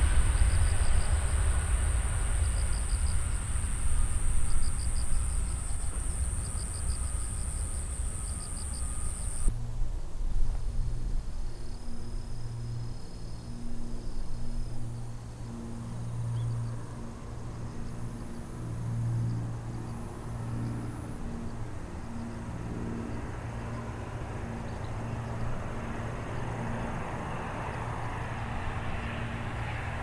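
Airbus A320 jet airliner rolling along the runway after landing, a steady low engine and tyre rumble, until an abrupt change about nine seconds in. Then a Boeing 737-800 on final approach, its jet engine noise faint at first and growing louder near the end.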